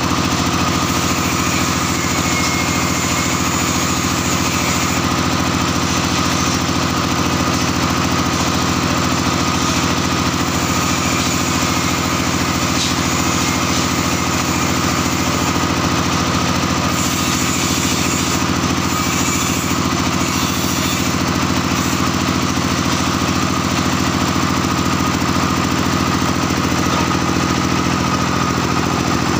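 Small engine running steadily at an even speed, a constant low drone with no change in pitch.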